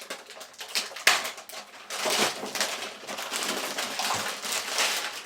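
Packaging around a computer power supply being cut open and pulled apart by hand: irregular crackling and rustling with small clicks.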